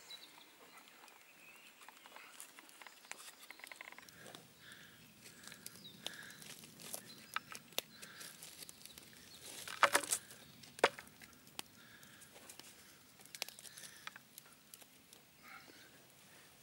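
Scattered light knocks and taps of a wooden stick against the hard, fire-baked clay shell around a roast, as the shell is being cracked open. The loudest knocks come in a quick cluster about ten seconds in.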